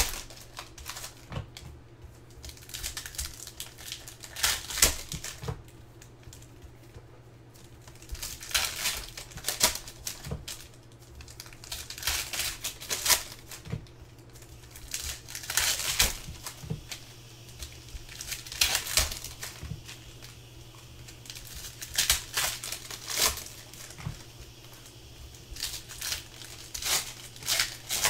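Foil trading-card pack wrappers being torn open and crinkled by hand, in repeated bursts of crackling with short pauses between. A faint steady low hum runs underneath.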